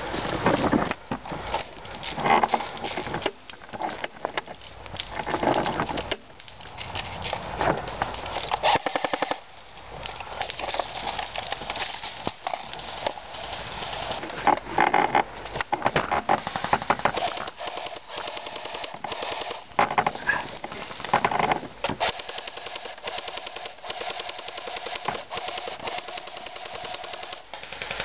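Airsoft guns firing in rapid bursts, a fast clatter of shots that comes in repeated volleys throughout.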